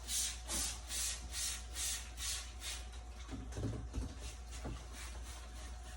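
Rhythmic swishing strokes on dehumidifier parts being cleaned, about two a second, fading after about three seconds, followed by a few soft knocks.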